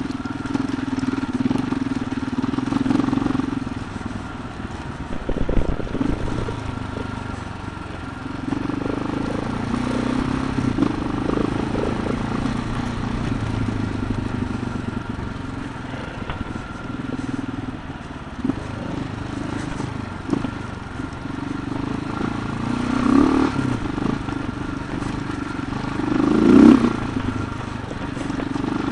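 Adventure motorcycle engine running under way on a dirt track, heard from the rider's seat, its note rising and falling with the throttle and swelling louder twice near the end.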